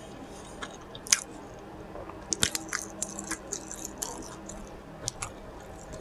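A person chewing a mouthful of chicken burrito with open-mouthed, wet smacking: scattered short, sharp lip and tongue clicks, several close together a couple of seconds in.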